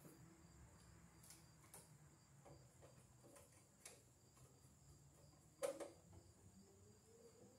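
Near silence, with a few faint clicks and light rustling as electrical cable is handled and pulled at a breaker panel. The sharpest click comes about three quarters of the way through.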